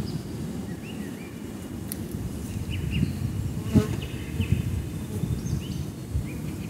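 Honeybees buzzing in a steady hum around a bee-covered frame lifted out of an open hive, with one light knock a little under four seconds in.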